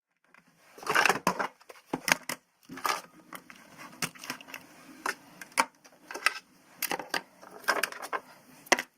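Cardboard being cut by hand, crunching and snapping in irregular bursts with about a dozen sharp snaps.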